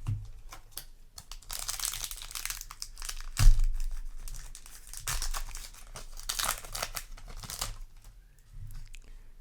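Foil booster-pack wrapper crinkling and being torn open, in two spells of crackling, with a dull thump about three and a half seconds in.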